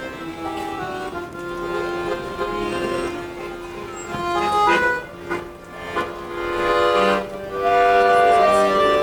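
Music: a melody of held notes that change step by step, over accompaniment.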